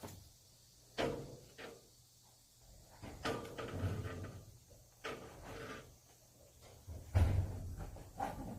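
Handling noises while working on a motorized projection screen: a series of sharp knocks and clatters, about seven in all, with rustling and scraping between them.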